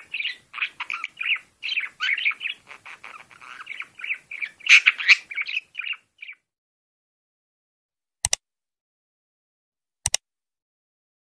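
Cockatiels chattering and squawking in quick, busy calls for about six seconds, then cutting off abruptly to silence, broken by two sharp clicks near the end.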